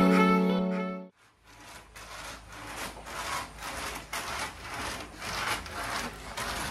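A held music chord fades out in the first second. Then a hand-worked sago grater scrapes: a nail-studded wooden board is pushed back and forth across a split sago palm trunk, rasping the pith into shreds in repeated scraping strokes.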